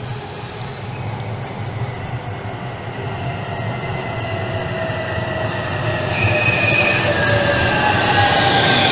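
A Trenord TAF double-deck electric train pulling into an underground platform: a rumble of wheels on rail grows steadily louder as it nears. Over it come high squealing tones that sink slightly in pitch as the train slows for its stop.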